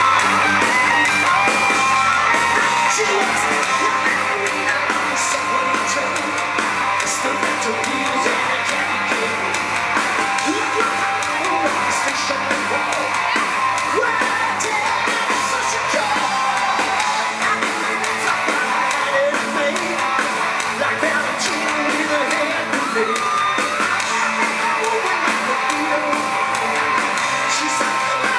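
Live hard rock band playing loudly: electric guitars, drums and a lead singer, with the singer shouting out lines over the band.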